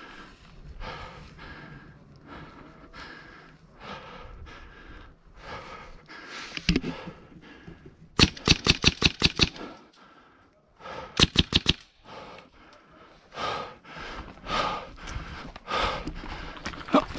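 Airsoft gun firing two bursts of rapid shots: about seven quick cracks some eight seconds in, then a shorter, faster burst of about five three seconds later. Shuffling movement and breathing fill the rest.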